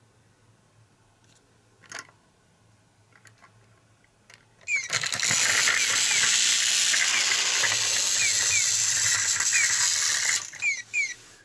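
Battery-powered toy tram running past on its plastic track: its small gear motor gives a loud steady whirr for about five seconds, with repeated short chirps, then fades and stutters out near the end. A single click comes about two seconds in.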